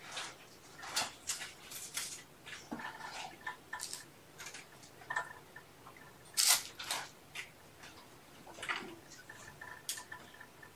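Handling noises: rustling, scraping and small clicks at irregular intervals, with one sharper rip or knock about six and a half seconds in, as a camera and its straps are adjusted by hand.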